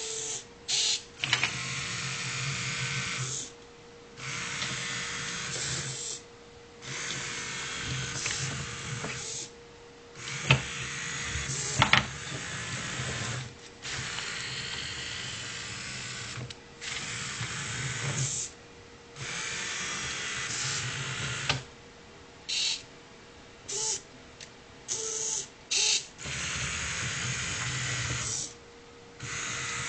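Small geared DC motors of an Arduino robot, run through a home-made L298N motor driver, whirring in bursts of one to three seconds that start and stop abruptly, with a few short blips in the second half as the robot drives about. A steady faint hum runs underneath, and two sharp clicks come around the middle.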